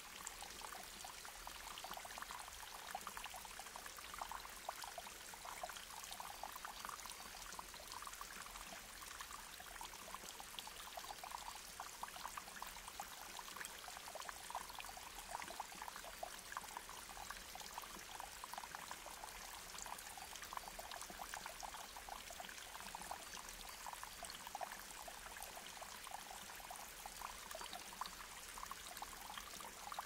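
Small waterfall splashing down a rock face: a steady, even splashing and spattering of falling water.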